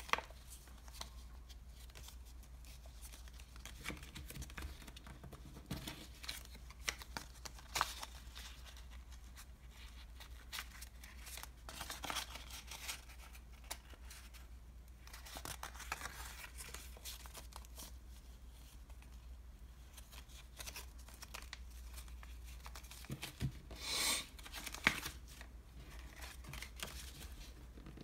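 Thin printed paperboard from an ice cream box being folded and creased by hand: scattered crinkles, scrapes and clicks, with a louder rustle and a sharp click near the end.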